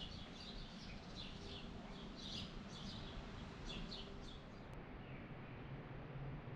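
Faint outdoor ambience with small birds chirping over and over in short high notes; the chirping stops abruptly about two-thirds of the way through.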